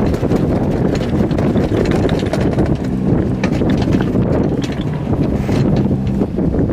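Gale-force wind buffeting the microphone: a loud, steady rumble with no let-up.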